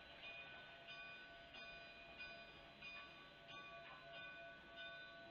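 Faint, distant ringing of a steam locomotive's bell, struck about every half second or so, as K36 No. 487 moves slowly through the yard.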